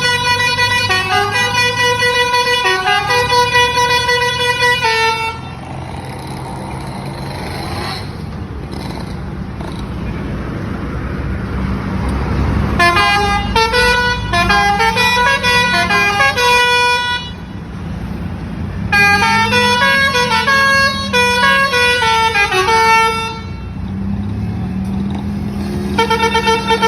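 Lorry telolet horn, a multi-tone musical air horn, playing quick stepping melodies in four long bursts. A truck engine hums steadily underneath and in the gaps.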